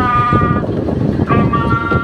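A person's voice holding long, steady sung notes. One ends about half a second in and another begins past the middle. Under it is the steady noise of the boat's engine and wind.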